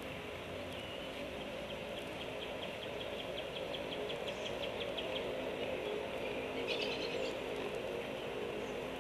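A juvenile bird giving a rapid series of short clicking calls, about five a second for several seconds, then a brief harsher call. A steady low hum runs underneath.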